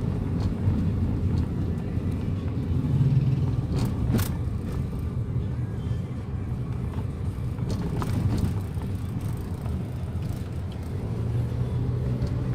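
Steady low rumble of a car driving, engine and road noise heard from inside the car, with a couple of brief clicks.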